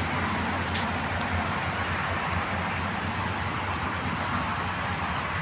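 Steady rushing noise of road traffic, with a low hum underneath and no single vehicle standing out.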